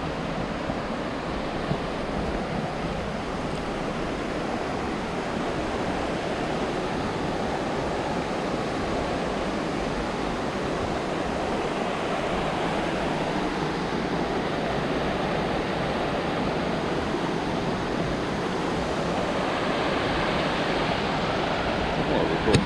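Steady rushing of flowing river water mixed with wind on the microphone, growing a little louder and brighter near the end. A brief knock comes just before the end.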